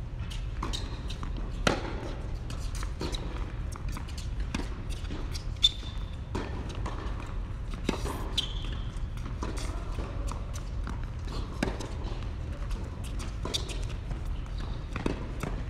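Tennis rally on an indoor hard court: rackets striking the ball and the ball bouncing, sharp knocks every second or so, with a few short squeaks, over a steady low hum.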